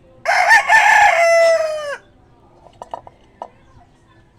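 Rooster crowing once: a loud call of nearly two seconds whose pitch drops away at the end.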